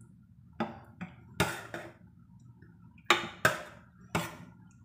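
A metal spoon clinking against a stainless steel pot while scooping chicken out of its broth: about seven sharp clinks in two bursts, a short pause between them.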